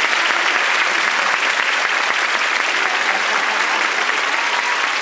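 A theatre audience and the cast on stage clapping together: steady, dense applause.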